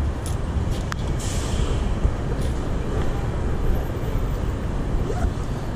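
Steady low rumble of a running vehicle engine, with a few light clicks and a short hiss about a second in.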